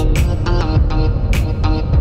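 Background music: a melodic track over a heavy bass, with sharp percussive hits.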